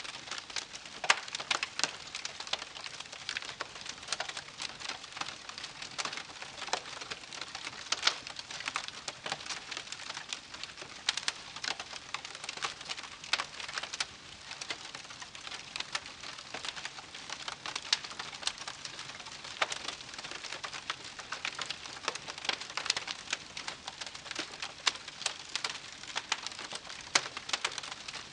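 Wood campfire crackling: a steady run of sharp, irregular pops and snaps over a soft hiss from the burning wood.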